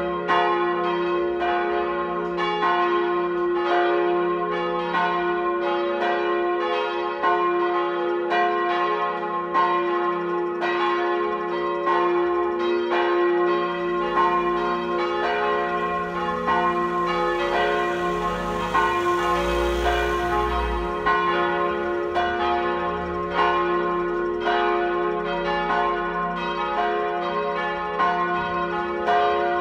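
Church tower bells rung in plenum, all bells swinging together, their strokes overlapping in a continuous, unbroken peal over a steady low hum. This is the full ringing that calls the parish to High Mass. A low rumble swells and fades around the middle.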